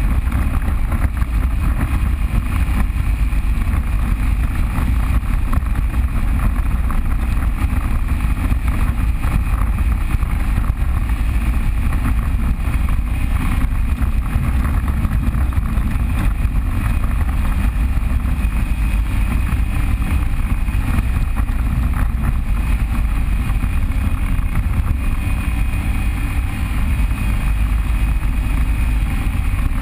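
Off-road vehicle engine running steadily during a trail ride, a continuous heavy low rumble with no change in pace.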